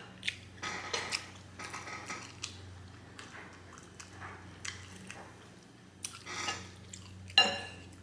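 Close-miked eating sounds: wet chewing of saucy spaghetti with a fork clinking and scraping on the plate, in scattered short clicks and smacks. The loudest is a sharp clink near the end.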